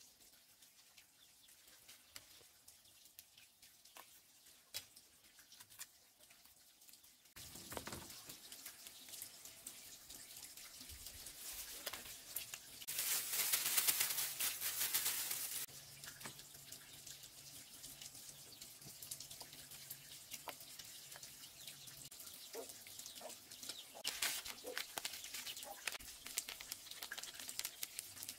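Hand food preparation: a plastic bag crinkles and rustles as crumbly seasoning is emptied from it into a plastic bowl, the loudest sound about halfway through. Small clicks and taps from handling a jar and a spice packet come before and after.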